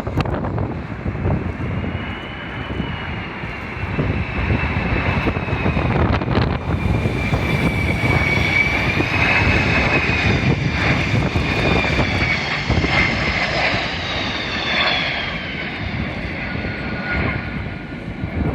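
Twin turbofan engines (Pratt & Whitney JT8D) of a Kawasaki C-1 transport jet on approach: a steady rumble with a high whine that wavers in pitch, is loudest in the middle and falls in pitch over the last few seconds as the aircraft passes. Strong wind buffets the microphone underneath.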